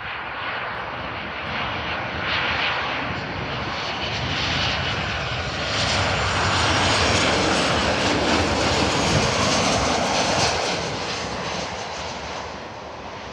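Jet engine noise of a Boeing 737 airliner on final approach to land. It grows louder to a peak between about six and ten seconds in, then fades as the aircraft passes.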